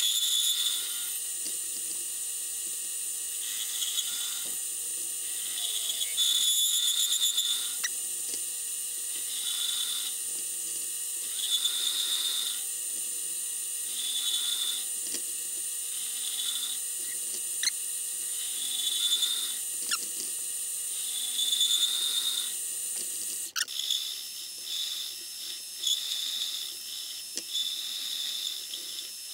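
Mini-lathe running with a steady motor whine while the cutting tool turns an 11-degree taper point onto a steel rod. The cutting noise swells and fades every couple of seconds as the tool is fed in. Near the end a click is heard and part of the steady hum stops.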